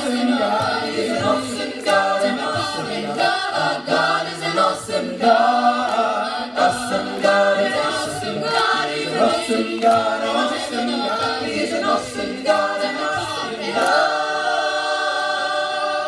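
Mixed a cappella vocal group singing in close harmony into microphones, with a beat of sharp clicks. Near the end the voices hold one long sustained chord.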